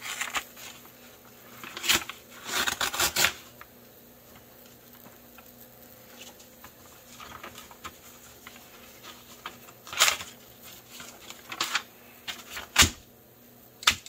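A sheet of notebook paper rustling and crinkling in the hands as a Griv-Ex plastic trainer balisong is pushed into it. Several short, sharp crackles come in clusters, the loudest near the end, when the paper tears.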